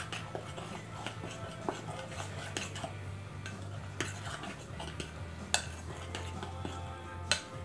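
Spoon stirring thick cranberry muffin batter in a glass mixing bowl: irregular clinks and scrapes against the glass, with a few sharper knocks, the loudest about five and a half seconds in.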